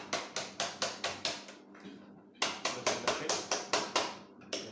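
Quick runs of sharp plastic taps on the Riino R8 cordless vacuum's cyclone dustbin, about five a second, in two bursts with a short pause between and one last tap near the end.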